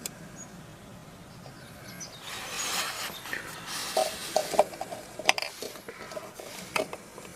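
Hand work on materials: a rubbing, scraping sound about two seconds in, followed by a run of light knocks and clicks.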